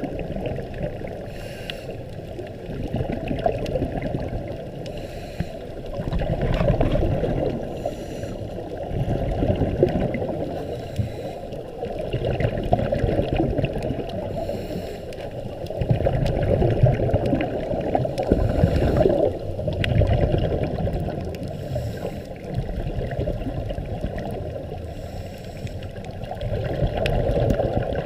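Muffled underwater water noise picked up by a submerged camera, a low rushing that swells and fades every few seconds.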